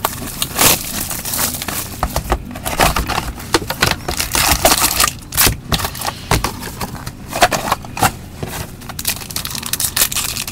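Crinkling and crackling of card-pack wrappers and packaging handled and torn open by gloved hands, in dense, irregular clusters of sharp crackles.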